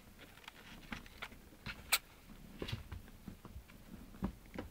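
Irregular soft scratches and rustles of kittens shifting about in a cardboard box as a hand strokes them, with one sharp click about two seconds in.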